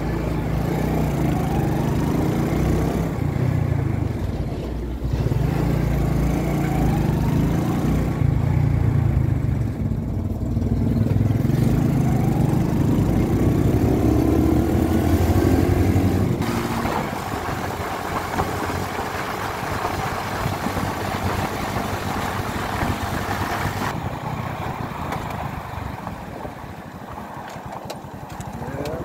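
A 70cc single-cylinder motorcycle engine running while riding, heard with wind on the microphone. The engine note rises twice in the first half as the bike picks up speed. After about two-thirds of the way in, the engine is quieter and the wind hiss stands out more.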